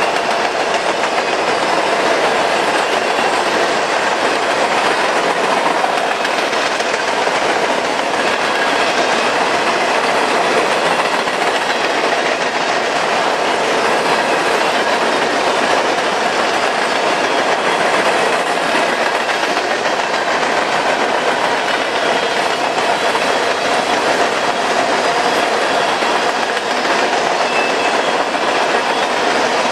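Freight train cars rolling steadily past on the rails, a loud continuous rolling noise with no horn.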